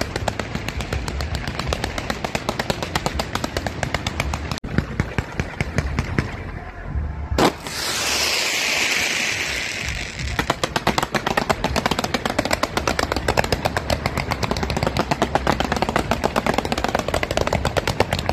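Fireworks going off close by: a dense, rapid crackle of reports. About seven seconds in there is a single loud bang, followed by a couple of seconds of hissing, and then the rapid crackling resumes.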